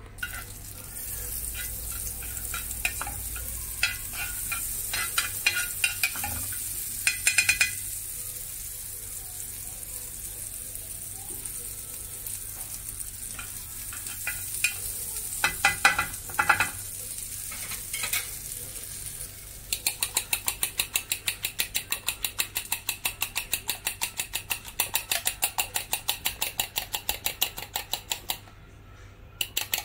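Butter sizzling as it melts in a hot iron pan, with the scrape and click of a wooden spatula spreading it. About two-thirds of the way in, the sizzle gives way to a fast, even clinking of about five strokes a second: a fork beating eggs in a glass bowl. It pauses briefly near the end, then picks up again.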